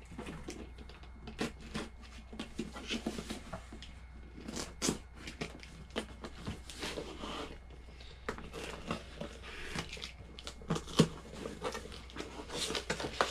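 Cardboard boxes being opened and handled by hand: irregular rustling, scraping and short knocks of cardboard, with one sharp knock near the end.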